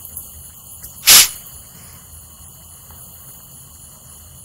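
A single short, loud hiss about a second in, over a faint steady background hum.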